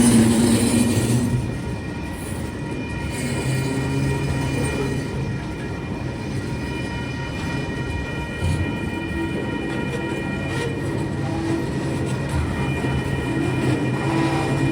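Tasrail freight train rolling past: a steady rumble of the wagons on the rails under a low running hum, with faint high steady squeal tones and a few clicks. It is loudest in the first second or so, then settles.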